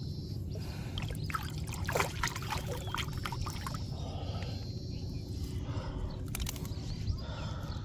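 Shallow water trickling and sloshing as a bamboo polo fish trap is worked by hand, with scattered small sharp splashes, a cluster of them in the first few seconds.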